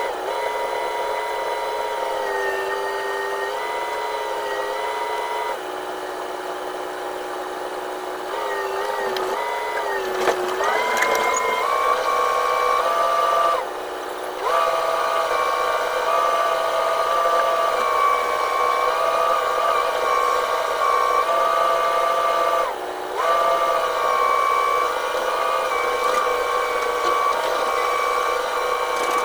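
Excavator engine and hydraulics running, heard from inside the operator's cab: a steady whine whose pitch steps up and down as the arm is worked, rising about ten seconds in, with two brief dips.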